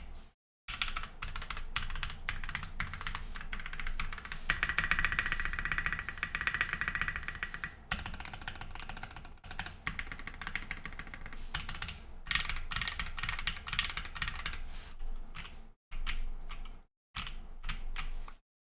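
Angel65 mechanical keyboard with H1 switches (55 g TX springs, Krytox-lubed) on a polypropylene plate, typed on fast: a dense run of key clacks, quickest and loudest from about four to eight seconds in. Near the end the sound drops out briefly several times where a noise gate cuts it.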